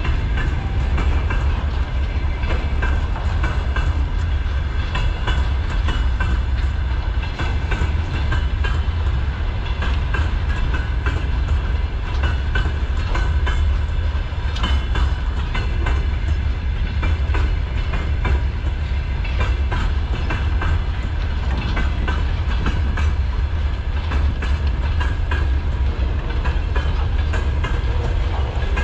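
Freight train's gondola wagons rolling past: a steady heavy rumble with a continual clickety-clack of wheels over rail joints.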